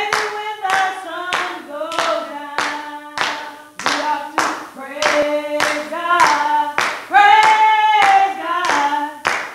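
Singing with steady hand clapping on the beat, a little over two claps a second, the singing growing louder about seven seconds in.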